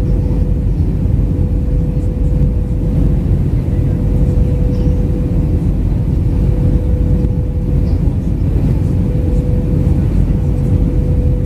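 Steady cabin noise inside an Airbus A319 in flight: a loud, even rumble of airflow and engines with a constant hum tone running through it.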